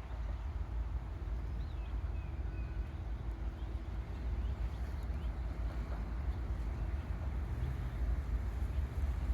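Diesel commuter train locomotive running with a steady low rumble and a faint steady hum above it.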